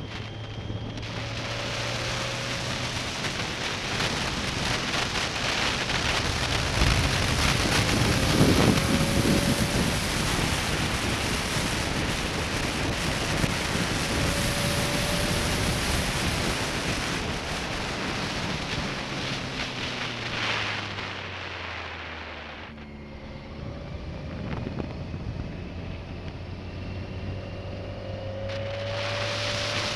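Wind rushing over an action camera's microphone on a moving 2005 BMW K1200S, with the bike's inline-four engine running underneath. About two-thirds of the way through, the wind noise drops and the engine note falls as the bike slows, then both rise again near the end.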